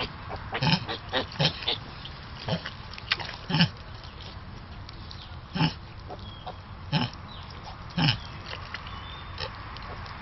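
Miniature potbelly pigs, a sow with her nursing piglets, grunting in short, irregular calls, several close together in the first few seconds, then a few more spaced out later.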